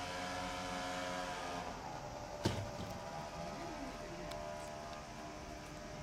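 Electric train's motors whining as it rolls slowly past the platform, the whine sinking a little in pitch as the train slows, with one sharp clack about two and a half seconds in and a fainter steady hum after it.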